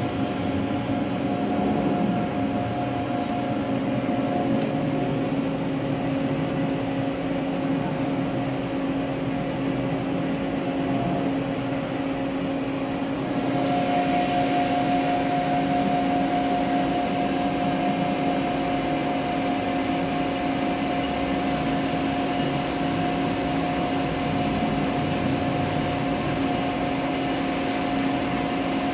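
A steady mechanical hum made of a few held tones over a noisy background, growing a little louder and brighter about halfway through.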